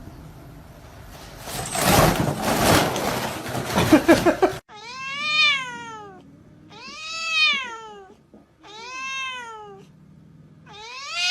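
A cat meowing: three long, drawn-out meows about two seconds apart, each rising then falling in pitch, with a fourth starting at the end. Before them comes a few seconds of rough noise that cuts off suddenly.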